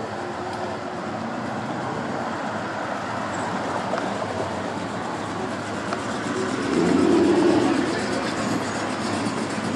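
Steady street traffic noise from passing cars, swelling louder for about a second around seven seconds in.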